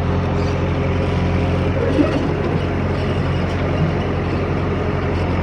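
JCB 3DX backhoe loader's diesel engine running at a steady speed.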